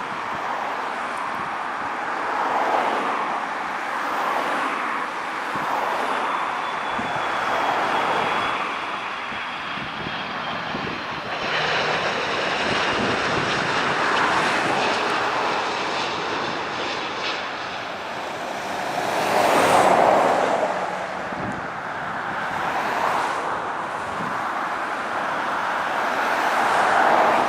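Airbus A330 airliner's jet engines on a landing approach: a rushing noise with a faint falling whine, swelling to its loudest about twenty seconds in as the aircraft passes.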